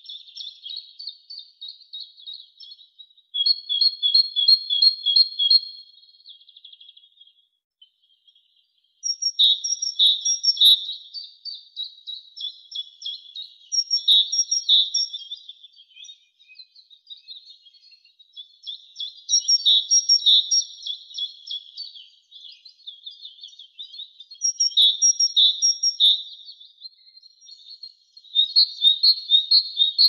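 Great tit singing: bouts of two to three seconds, each a fast run of repeated two-part notes, about seven bouts with short pauses between them.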